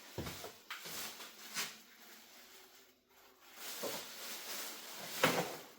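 Scattered rustles, scrapes and knocks of hands handling things, with a louder knock about five seconds in.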